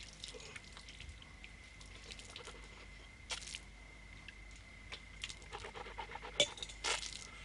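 Faint clinks and scrapes of brass plates and cups being handled, with a few short, louder rustling bursts about three seconds in and near the end, over a faint steady high hum.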